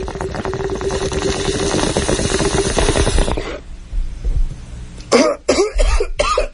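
Bong-hit sound effect: a water bong bubbling and gurgling for about three and a half seconds, then a fit of harsh coughing near the end.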